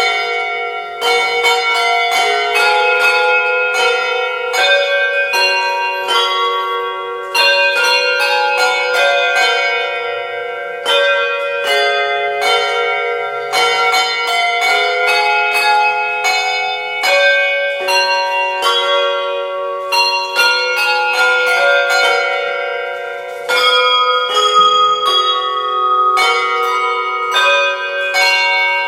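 A team of handbell ringers playing a traditional carol: a steady run of hand-rung bells sounding the tune and its chords, several bells often struck together, each note ringing on after it is struck.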